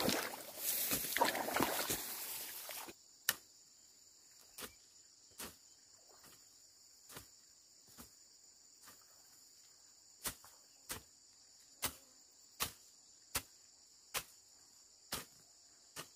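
Steady high insect drone, with a loud rustle of grass and rice plants for the first three seconds, then a string of short sharp snaps about once a second as weeds are pulled by hand from the wet rice paddy.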